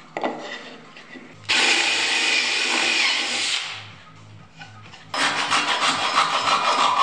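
DeWalt cordless drill spinning a twist bit into hardwood, in two bursts: one of about two seconds, and another starting about five seconds in. Wood being handled on the bench in between.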